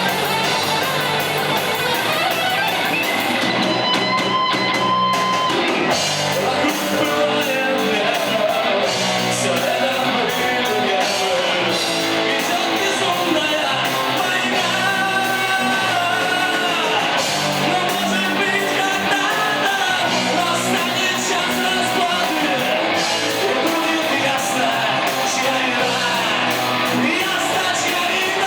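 Live rock band performing: sung vocals over electric guitars, bass and drums, played in a hall.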